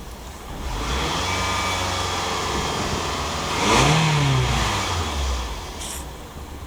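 2003 Toyota Tarago's 2.4-litre engine running and being revved: the revs rise about a second in, climb higher near the middle, then drop back toward idle.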